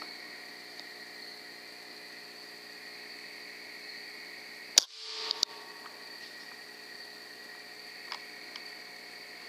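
Night insects chirring steadily in a high two-band chorus. About five seconds in comes a single sharp crack from the .22 PCP air rifle firing, with a smaller click half a second after it.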